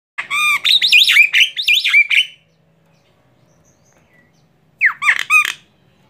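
Female Javan myna (jalak kebo) calling loudly in harsh, quick notes that swoop up and down in pitch, a run of about two seconds and then a shorter one near the end.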